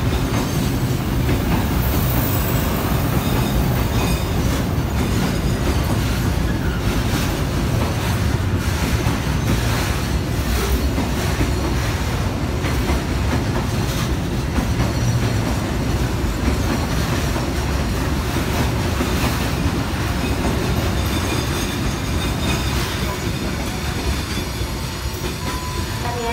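Container freight train's loaded flat wagons rolling past at close range: a steady, loud rumble of steel wheels with repeated clicks as they run over the rail joints.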